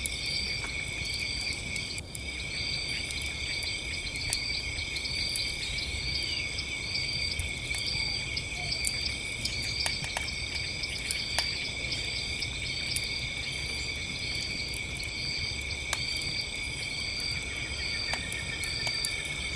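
Campfire crackling with scattered sharp pops over a steady chorus of crickets and other night insects trilling, one of them chirping about once every three-quarters of a second.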